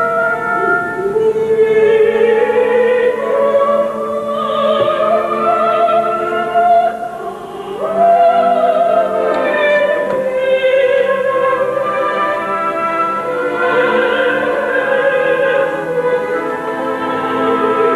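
Operatic singing with instrumental accompaniment: a solo voice holds long, high notes with a wide vibrato, rising to its highest note about eight seconds in.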